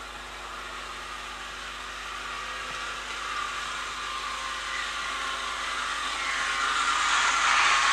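Model train running on the layout: a steady whirring of the locomotive's electric motor and wheels on the rails, growing steadily louder.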